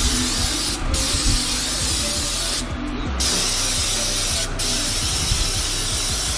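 Aerosol brake cleaner spraying onto a new drilled and slotted brake rotor in four long hissing sprays with short breaks between them, the first break about a second in. The spray is cleaning the factory protective film off the new rotor.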